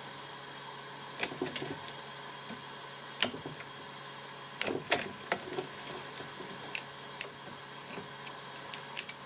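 Scattered light clicks and taps, about a dozen, as wire terminals are worked loose from a Makita DHS680 circular saw's controller by hand.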